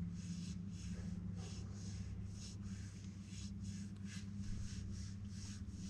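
A small boat's motor running steadily at trolling speed, a low hum, with a higher hiss that pulses about three times a second.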